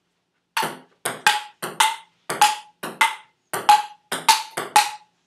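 Table tennis rally: a ping pong ball clicking off the table and the paddles in quick pairs, a bounce then a hit, about every half second. It starts about half a second in.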